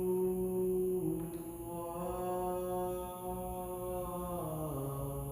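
Background music: a slow worship chant with long held sung notes, the melody moving to a new note about two seconds in and sliding down near the end.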